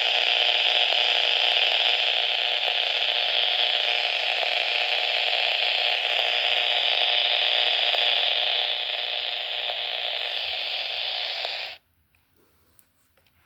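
Weather radio receiver's speaker hissing with steady static, no broadcast audible, then cutting off abruptly about twelve seconds in.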